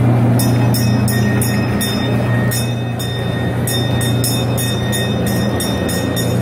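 Kiddie boat ride's drive machinery running with a steady low hum and a faint high whine, with a high, rapid ticking about three times a second.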